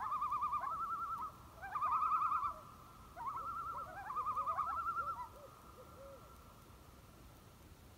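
Common loon tremolo calls: quavering, laughing phrases in three bouts, the last ending about five seconds in, followed by faint background.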